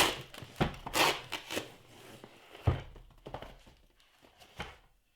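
Cardboard boxes and packaging being handled and opened by hand: a series of irregular knocks and rustles, the loudest right at the start and again about halfway through.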